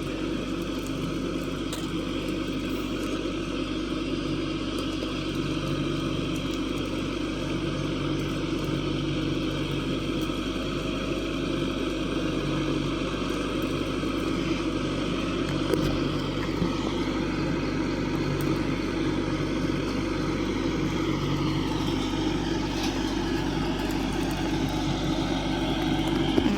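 Tractor engine running steadily at an even pace while pulling a crimper through cereal rye.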